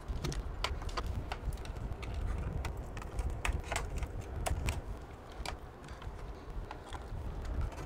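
Irregular light clicks and taps of a small screwdriver and fingers working on parts inside an open sheet-metal rack case, with a low handling rumble underneath.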